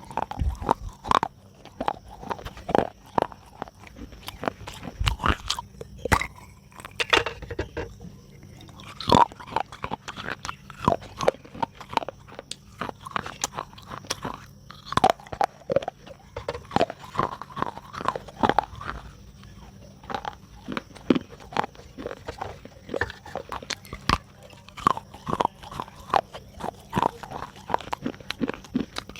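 A person biting and chewing pieces of soft clay pot: a steady run of irregular wet, crunchy crackles, several a second.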